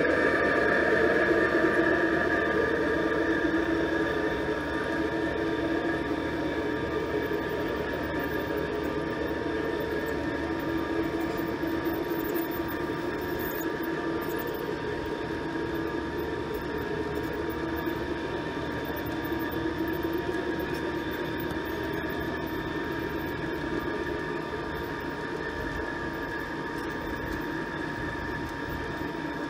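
G scale model freight train running along garden track: a steady hum and rumble of the wheels and drive with a few held tones, slowly getting quieter.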